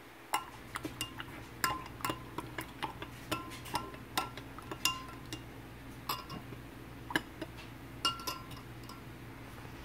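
Metal spoon stirring liquid in a glass measuring cup, clinking against the glass sides unevenly about twice a second, each clink ringing briefly. The liquid is strawberry gelatin powder being dissolved in boiling water.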